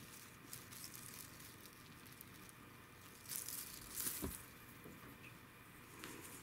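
Faint rustling and crinkling of a wand cat toy's tape-like streamers as a cat bats and grabs at them, in short scattered bursts, loudest about three to four seconds in.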